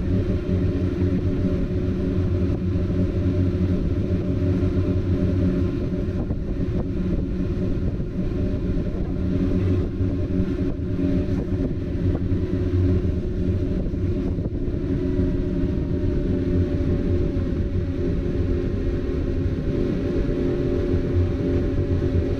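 Motorboat engine running steadily at speed, a constant low drone with an even pitch.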